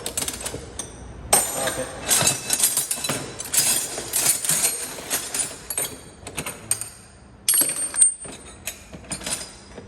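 Metal hand tools such as sockets and clamps clinking and clattering as they are rummaged through and set down among other loose tools, a quick run of clanks with one louder, ringing clank about eight seconds in.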